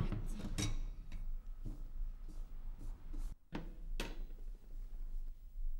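A ceramic bowl handled on a wooden table: a few light knocks and clicks, over a faint low hum.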